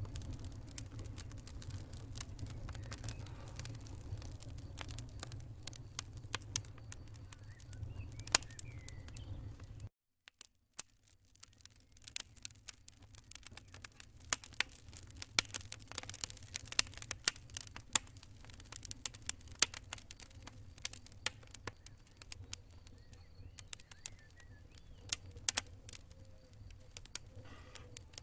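Wood fire crackling in a fireplace: irregular sharp pops and snaps over a low steady rumble. About ten seconds in, the sound cuts out for about a second, then the crackling resumes with less rumble beneath it.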